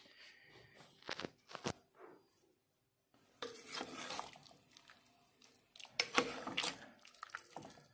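Metal ladle scraping and clinking against a metal cooking pot while stirring and lifting a thick pork stew. There are a couple of sharp clinks about a second in, then longer scraping stirs with knocks in the second half.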